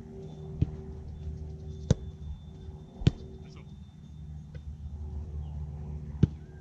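Four sharp thuds of a soccer ball being struck, spaced a second or more apart, over a steady low hum.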